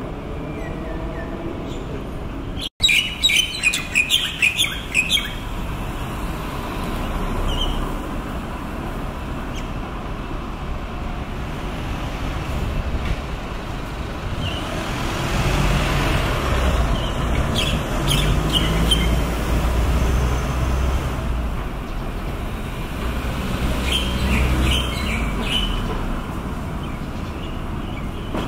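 Street ambience: birds chirping in short bursts over a steady traffic hum. A vehicle's engine and tyres rumble past, loudest through the middle.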